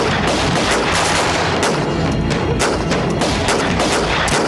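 A battle fusillade: many gunshots fired in quick, irregular succession and overlapping, with no pause.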